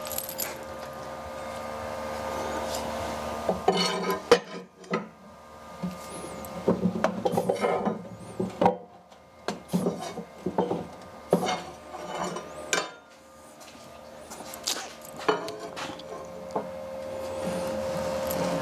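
Hand work on metal parts: irregular scraping and rubbing strokes mixed with sharp clinks of tools and metal pieces, over a faint steady hum.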